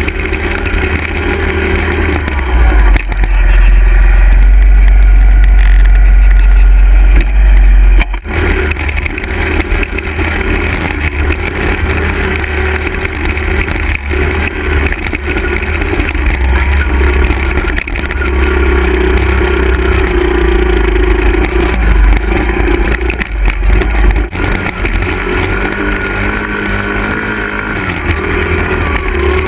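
Small Honda 50cc four-stroke dirt bike engine running under load on a trail ride, its revs rising and falling. Heavy wind noise buffets the microphone, loudest from about three seconds in until it cuts off suddenly around eight seconds.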